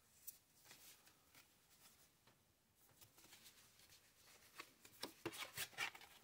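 A small stack of art cards being handled and shuffled: faint rustling, then a quick run of sharp card clicks and snaps in the last second and a half.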